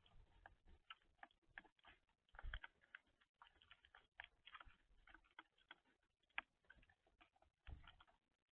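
Faint, irregular ticking and tapping of birds pecking at seed on a feeder, several small clicks a second, with a few soft low thumps.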